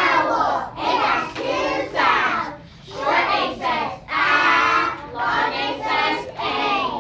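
A child's voice singing or chanting English letter sounds as a phonics warm-up, in short separate syllables.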